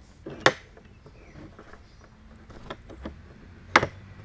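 Handling noise: a few sharp clicks and knocks, with louder ones about half a second in and near the end, from things being fumbled at close range to the phone's microphone.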